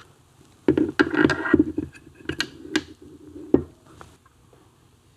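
Steel gearbox gears of a Triumph Tiger Cub engine clicking and knocking against one another and the aluminium crankcase as the oiled gear cluster is handled and set in place: a run of about seven sharp knocks that starts under a second in and stops a little past the middle.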